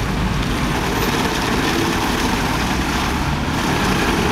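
Road roller's engine running steadily, a continuous low engine drone.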